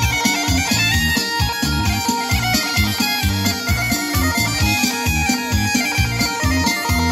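Instrumental Balkan folk dance music with a quick, steady bass beat under a sustained, reedy melody line.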